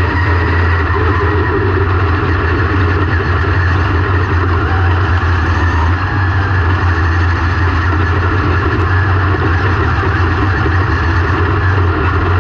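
Dirt semi-late model race car's engine running steadily: a constant low drone with no clear rise or fall in pitch.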